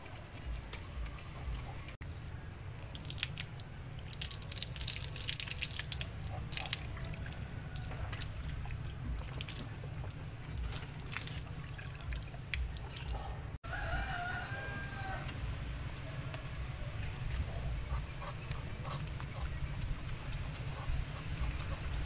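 Water splashing and dripping as a plastic dipper is scooped and poured over a bucket, over a steady low rumble. A rooster crows once a little past halfway.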